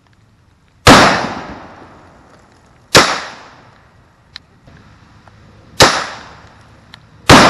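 Four gunshots at irregular spacing, the first about a second in and the last near the end, each trailing off in a long echo.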